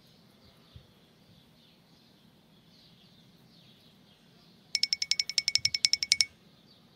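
Faint bird chirping in the background. About two-thirds of the way through, a loud, rapid trill of about twenty sharp, high-pitched pulses lasts about a second and a half and cuts off suddenly.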